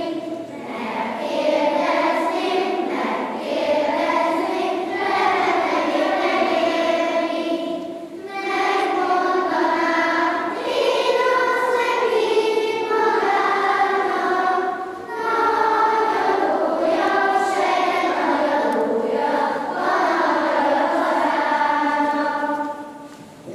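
Children's choir singing a song in long held phrases with short breaks between them; the singing ends near the close.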